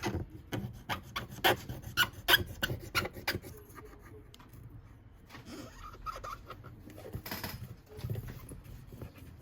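Alcohol-soaked cotton swab scrubbing around the perimeter of a phone's frame, clearing old display adhesive residue. It makes a run of quick, irregular scratchy rubbing strokes, dense for the first few seconds and sparser after.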